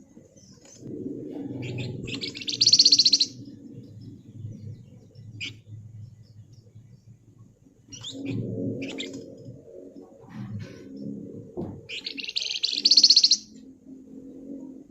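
Flamboyan (wergan jawa, Javan fulvetta) songbird giving two loud, rapid buzzing rattles of about a second each, one about two seconds in and one near the end, with a few short sharp chirps between them.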